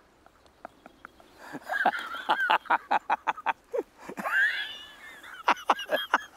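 Men laughing: a quick run of short laughs, a high wheezing laugh about halfway through, then a few more short laughs near the end.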